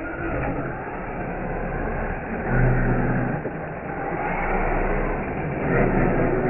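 A vehicle running: a steady, noisy rumble with a low hum that swells about two and a half seconds in.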